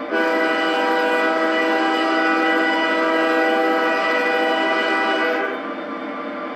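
Digital sound decoder's diesel locomotive air horn, one long blast of about five seconds as a steady chord of several tones, played through the small loudspeakers of a G-scale Aristocraft GP40 model. Under it runs the decoder's idling EMD 16-645E3 engine sound.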